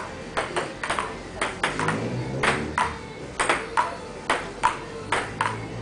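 Table tennis rally: the celluloid ball clicking off the paddles and the table in a steady back-and-forth, about three to four hits a second.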